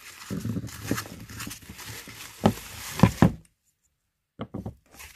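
Bubble wrap rustling and crinkling as a trinket box is unwrapped, then three sharp knocks as the box is handled, the loudest near the middle. The sound cuts out for about a second, followed by a few light clicks.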